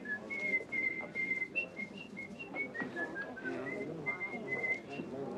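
A person whistling a tune: a run of short, clear notes stepping up and down, about three a second.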